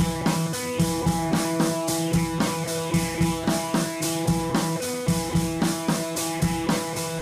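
Background music with a steady beat and sustained held notes.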